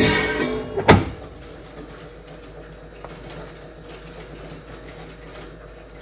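Lapidary slab saw cutting a block of wonderstone (rhyolite): a loud ringing grind of the blade in the stone for about the first second, ending in a sharp clack just under a second in, then the saw's steady running hum.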